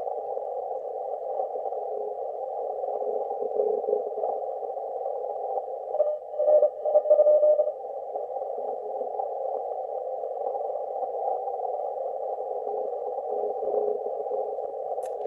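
Receiver audio from a shortwave amateur radio on 15 meters, playing through laptop speakers: a steady narrow band of hiss as through a CW filter, with a short run of Morse code tones keyed on and off about six seconds in. A single sharp click near the end.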